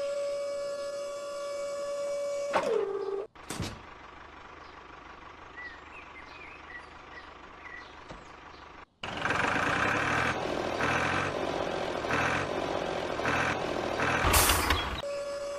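A small motor whining steadily, then winding down in pitch and stopping. After a cut comes a quiet stretch with a few faint chirps. Then a loud pulsing beep, about two a second, like a truck's reversing alarm, ending in a short loud burst.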